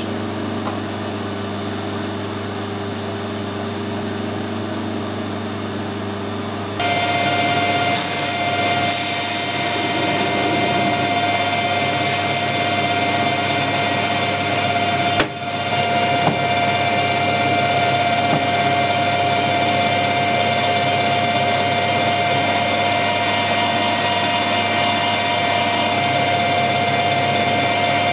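Metal lathe running while screwcutting a 20 TPI UNF bolt thread: a steady motor hum, joined about seven seconds in by a louder gear whine of several steady tones, which carries on to the end after a brief dropout midway.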